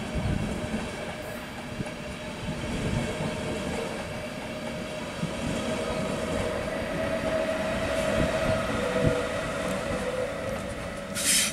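ÖBB double-deck Cityjet coaches and a class 1116 Taurus electric locomotive rolling past, the wheels rumbling and knocking over the rails. A steady humming tone swells in the middle. A brief high-pitched screech comes near the end.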